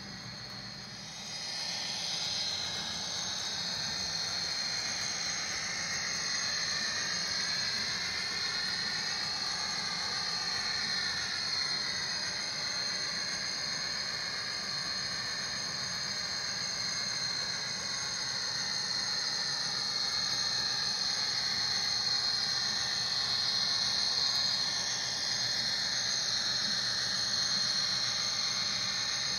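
HO-scale model diesel locomotive running along the track with a train of tank cars: a steady high whine and hiss with slowly gliding tones, getting louder about a second in.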